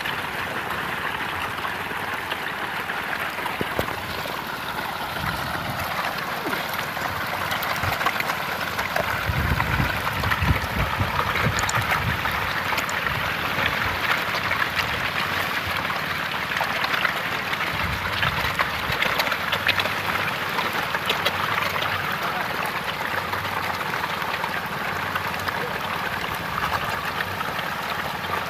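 Dense, continuous splashing and slapping of a mass of farmed catfish thrashing at the water's surface in a feeding frenzy over pellet feed, with low rumbling bumps twice, around ten and nineteen seconds in.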